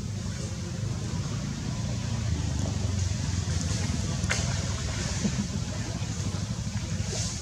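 A steady low rumble, with a single sharp click about four seconds in.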